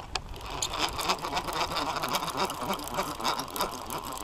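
Conventional revolving-spool fishing reel being cranked to wind in line, a steady fast mechanical whirr of rapid ticks.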